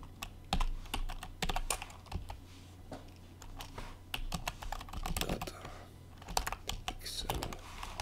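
Computer keyboard keys clicking in quick, irregular runs as code is typed, over a steady low electrical hum.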